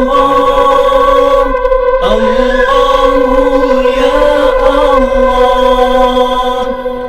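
Chanted dhikr: the name 'Allah' sung in long, steady held tones, with a new chanted phrase starting about two seconds in.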